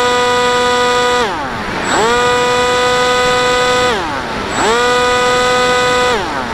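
The motor and propeller of an FPV model plane, heard from on board, running at a steady high pitch. The throttle is cut about a second in, so the pitch falls steeply, then it is opened again and the pitch climbs back. This happens again at about four seconds, and the pitch drops once more near the end.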